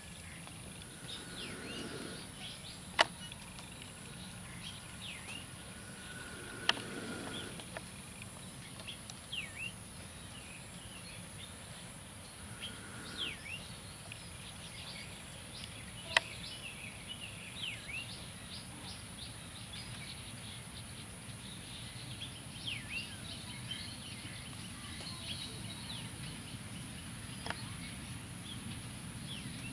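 Small birds chirping and calling in short, quick notes, over a steady high hiss and a faint low rumble that grows slightly toward the end as a distant diesel locomotive approaches. Four sharp clicks stand out, the loudest sounds.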